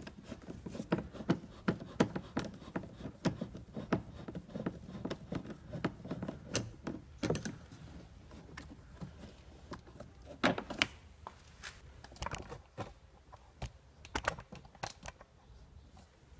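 Irregular light clicks and taps as a hand screwdriver turns a self-tapping screw out of a car's plastic door trim panel, with handling knocks from the trim. A few louder knocks stand out, the loudest about ten seconds in.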